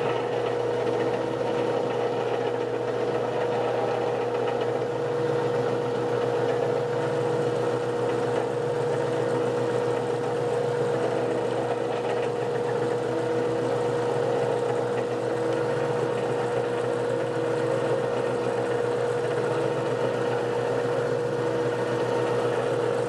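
Grizzly G0709 gearhead metal lathe running steadily with its spindle turning. The running sound holds one constant tone throughout. The spindle is turning the 5C collet adapter for a dial-indicator runout check.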